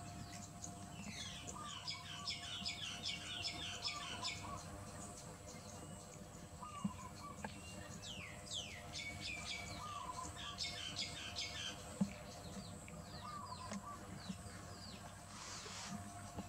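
Small birds chirping: two long spells of rapid high twittering, and a short repeated call at a lower pitch every second or two. A single sharp click sounds about twelve seconds in.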